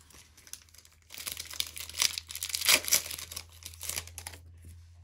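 Crinkling of a foil booster-pack wrapper being handled, in irregular crackles that grow loudest just before the three-second mark and die away near the end, over a faint steady low hum.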